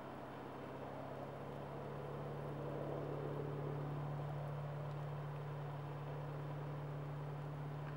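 A vehicle engine running steadily with a low, even hum that swells slightly a few seconds in.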